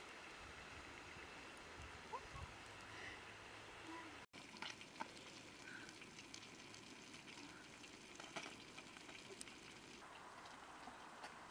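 Faint, steady hiss with scattered light crackles from a small wood fire burning under a wok. The sound cuts out for an instant about four seconds in.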